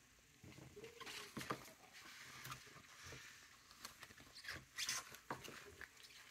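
Rubber-gloved hands squeezing and wringing dye-soaked fabric in a plastic tub: faint, irregular wet squishing and rubbing, with a brief squeak about a second in.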